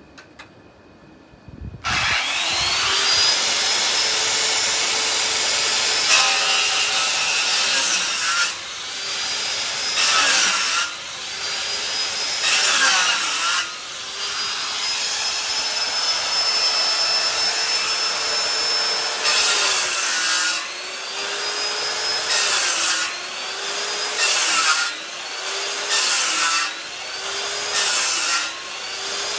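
Corded circular saw starting up about two seconds in, then cutting a series of slits across a wooden landscape log to mark out a notch. The motor's whine sags under load with each cut and recovers between them, and the cuts come about every two seconds in the second half.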